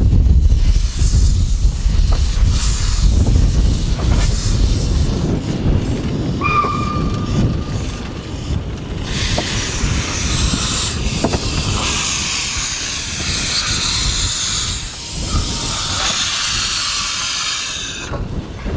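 Replica of Förstlingen, Sweden's first steam locomotive, running slowly on the track. A low rumble is followed by a brief high squeal about six seconds in. From about nine seconds in comes a loud, steady hiss of escaping steam, which cuts off suddenly near the end.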